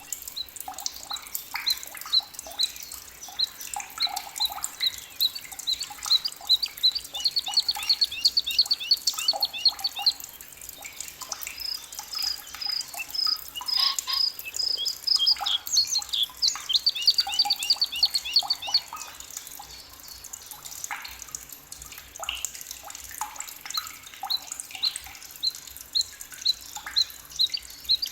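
Forest birds singing: one bird repeats a short high note over and over, while others add rapid trills and varied song phrases.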